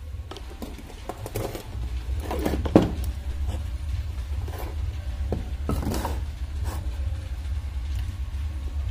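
Handling noise of wires and a loudspeaker being moved about on a workbench: scattered light knocks and rustles, with one sharp click about three seconds in, over a steady low rumble.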